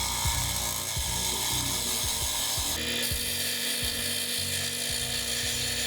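Mini wood lathe turning a piece of wood, a turning tool scraping and cutting against the spinning blank with a steady hiss. A steady hum joins in about halfway.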